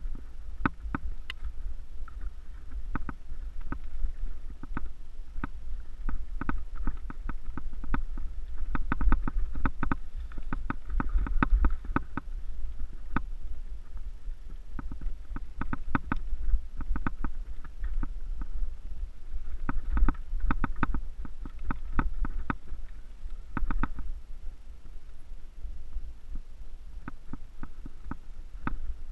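A mountain bike riding a rough dirt singletrack, heard through a ride-mounted action camera: a steady low wind rumble on the microphone under irregular clicks and rattles from the bike and camera mount jolting over the trail.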